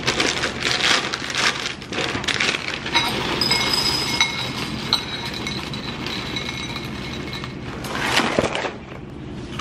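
A plastic cereal bag crinkling and rustling, then dry cereal pouring and rattling into a ceramic bowl for several seconds. A louder rustle comes near the end.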